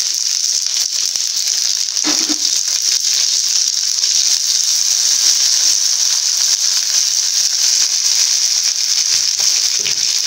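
Whole shallots and garlic cloves sizzling steadily in hot sesame (gingelly) oil in a nonstick kadai, with a brief knock about two seconds in.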